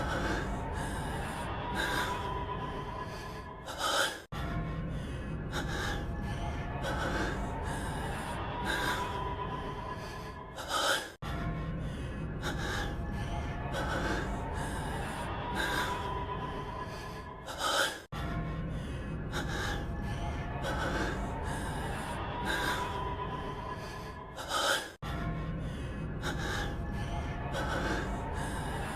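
A male anime character's heavy, panting breaths and gasps, played as a loop: the same stretch of about seven seconds repeats about four times. Each pass ends in a sharper gasp and a momentary dropout where the loop restarts.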